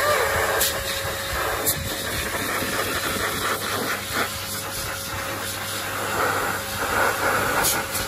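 High-velocity pet dryer blowing a steady rush of air through its hose into a Samoyed's thick coat, with a faint steady tone under the rush.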